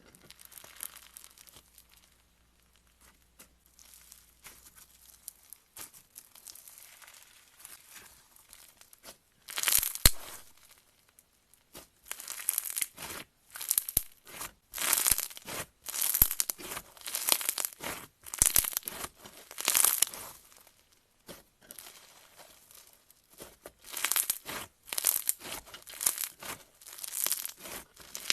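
Slime being squeezed and stretched by hand, making crackly, crinkling squelches. It is faint at first, then from about ten seconds in comes in louder bursts roughly once a second.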